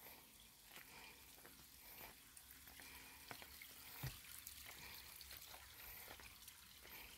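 Faint footsteps on a leaf-strewn stone-slab path: scattered small crackles and ticks, with one soft thump about four seconds in.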